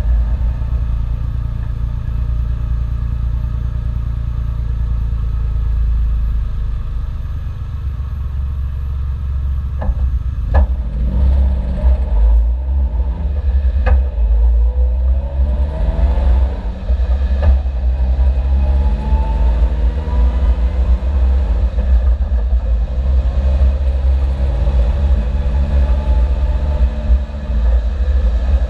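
Suzuki Jimny engine and exhaust running under way with a heavy low rumble; from about ten seconds in the engine pitch rises and falls repeatedly as it revs through the gears, with a few short sharp pops. The engine is one the owner describes as already misfiring, a day before it blew.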